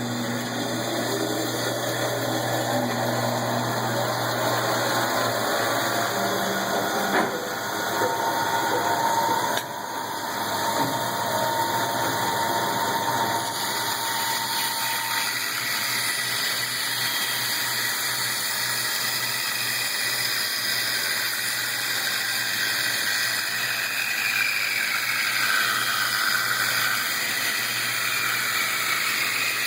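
Powermatic Model 81 vertical wood band saw running, a steady motor hum with the blade whirring.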